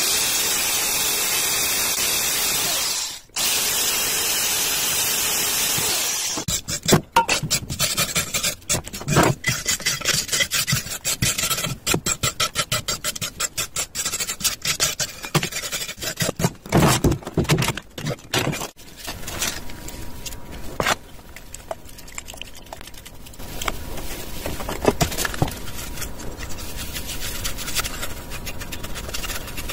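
Corded electric drill running steadily as it bores into a cured cement-soaked knit hat, pausing briefly about three seconds in and stopping about six seconds in. Then a long run of irregular sharp scrapes and knocks from hand-tool work on the hardened cement, giving way to quieter rubbing and handling near the end.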